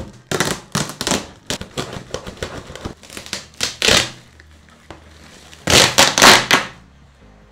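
A plastic-wrapped parcel being ripped open: a series of loud, irregular ripping and crinkling noises as the plastic wrap and packing tape are torn. The loudest rips come in the second half, then the noise stops.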